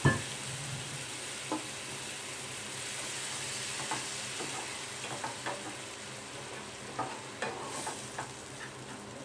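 Water poured into a hot pan of fried onion-spice masala, with a sudden loud sizzle at the very start. After that the thinned masala sizzles steadily while a wooden spatula stirs it, with scattered light taps and scrapes against the steel pan.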